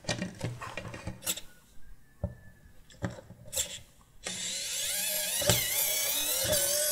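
Light clicks and knocks of plastic parts being handled, then from about four seconds in a small electric precision screwdriver runs with a steady whine, its pitch wavering, as it undoes the screws holding the toy's plastic ball joint.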